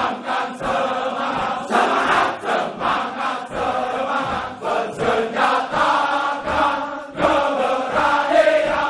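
A choir of voices chanting together, in held phrases with short breaks between them.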